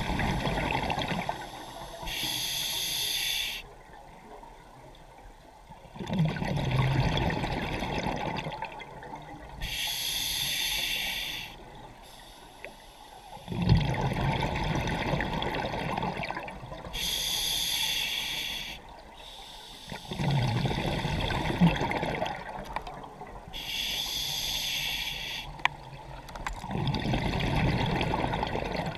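Scuba diver breathing through a regulator: a hissing inhale of about a second and a half, then a longer gush of exhaled bubbles, repeating about every seven seconds, four full breaths.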